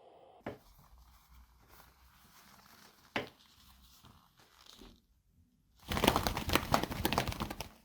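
Two leather gloves flapped together as a Foley imitation of a bird's wings flapping: a couple of faint taps, then about two seconds before the end a loud, rapid run of flaps.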